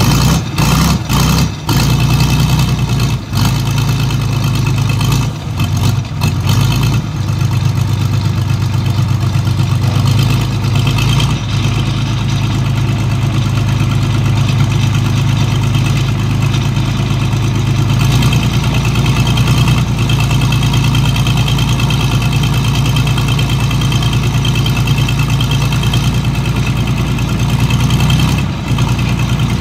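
Engines of a hydraulic excavator and a small suction dredge's pump running steadily together, a continuous low hum at a constant pitch, broken by a few brief dips in the first few seconds.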